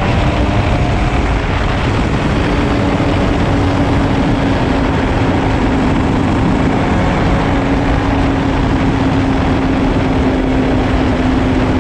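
Husqvarna TE 300 two-stroke dirt bike engine running at a steady road speed, its note holding level, under a heavy rush of wind noise.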